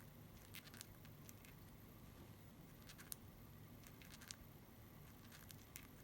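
Faint, scattered small clicks and rustles from pet budgerigars moving about, about ten soft ticks spread unevenly over a low steady room hum.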